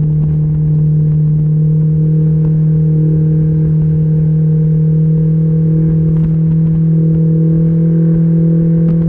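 Mercury 60/40 jet outboard running steadily at speed, a constant engine drone over a low rumble, edging slightly higher in pitch near the end as the boat picks up speed.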